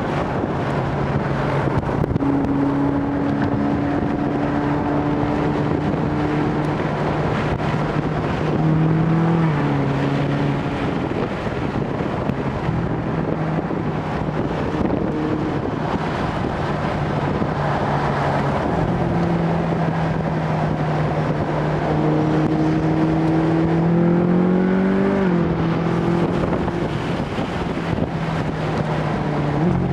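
Ferrari California's V8 engine running under way, heard from inside the car: a steady engine note that twice climbs in pitch and then drops back, about nine seconds in and again about twenty-five seconds in, as the revs rise and the gearbox shifts up.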